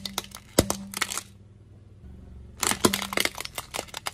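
Crackling and snapping as a car tyre rolls slowly onto a toy car and presses down on it: a run of sharp cracks, a pause of about a second, then another run of cracks.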